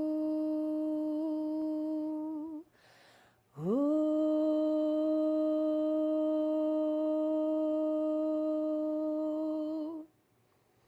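A woman's voice toning one long, steady note, then a short breath. A second note slides quickly up to the same pitch and is held until it stops near the end.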